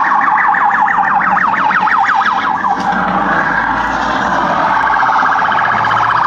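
Electronic siren sounding in rapid rising sweeps, about four a second, switching about halfway through to a faster warble.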